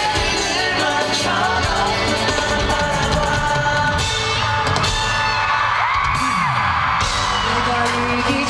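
A male singer singing a pop song live with a backing band, heard from the audience through the arena's sound system.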